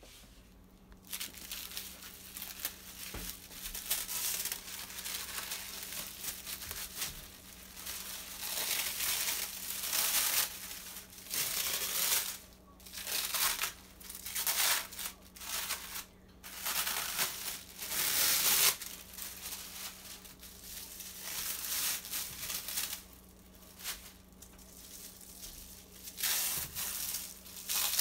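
Plastic wrap being pulled, crinkled and rustled by hand around a raw pork loin, in irregular bursts that come and go, loudest about two-thirds of the way in.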